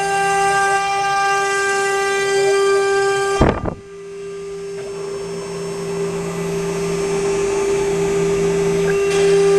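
Spindle motor of a mini desktop 3030 CNC router whining at a steady pitch while cutting wood sheet. About three and a half seconds in there is a brief sharp disturbance, after which it runs quieter and with less high whine, then gradually gets louder again.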